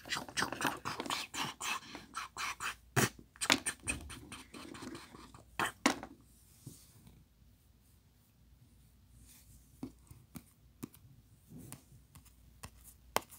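Small plastic toy pieces being handled and scraped against a plastic toy bathroom set close to the microphone: a dense run of clicks and scratches for about six seconds, then only a few scattered light taps.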